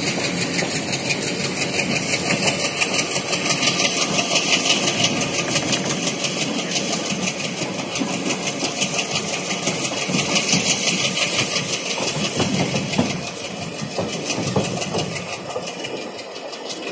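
Running noise of a train at speed, heard from aboard: wheels rolling on rail with a fast, even clatter and rushing air. It grows somewhat quieter over the last few seconds.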